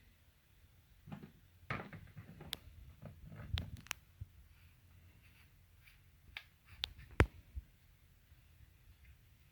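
Small plastic valve parts being handled and fitted by hand: scattered light clicks, taps and rustles, with one sharper click about seven seconds in.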